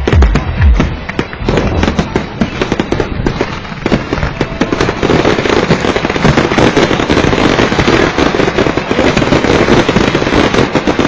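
Fireworks salute: deep booms in the first second, then a rapid barrage of bangs and crackles that grows denser and louder about five seconds in.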